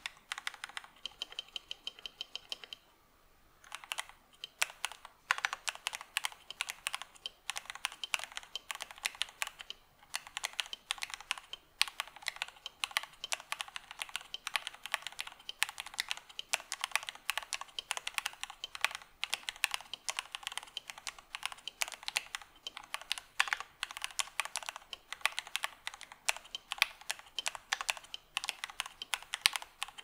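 Mechanical keyboard with Gateron Silver Pro linear switches being typed on quickly: a dense, steady stream of key clacks, with a brief pause about three seconds in.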